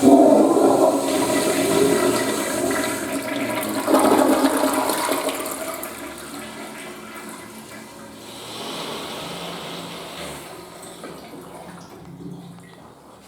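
Western-style toilet flushing: a loud rush of water with a second surge about four seconds in, then tapering off into a fainter hiss as it fades.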